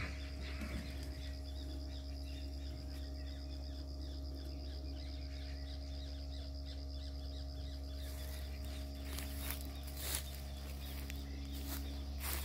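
Outdoor evening ambience at a pond: a steady high trill with faint rhythmic chirping over a steady low rumble, with a few sharp rustles in the last few seconds.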